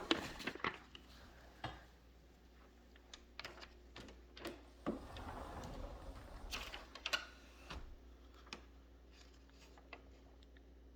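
Faint, irregular light clicks and taps, with a soft rustle partway through, over a low steady hum.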